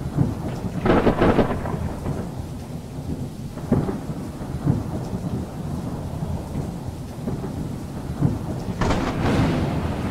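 Thunderstorm with steady rain and rolls of thunder: the loudest rolls come about a second in and again near the end, with a shorter, sharper clap around four seconds in.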